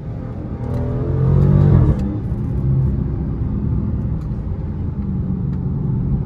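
Dodge SRT HEMI V8 accelerating, heard from inside the cabin: its pitch climbs for about two seconds, drops sharply on an upshift, then the engine runs steadily in the higher gear.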